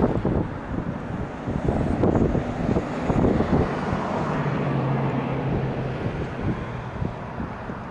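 A passing train rumbling, with wind buffeting the microphone in gusts. A steady low drone comes in for a couple of seconds in the middle.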